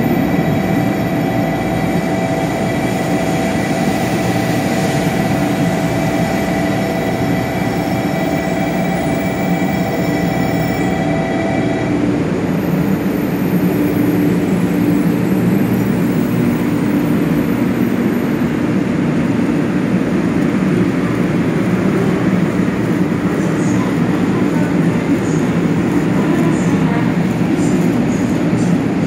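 500 series Shinkansen train moving slowly past the platform. Its VVVF inverter gives a set of steady whining tones that cut off abruptly about twelve seconds in, over a continuous rumble from the running gear.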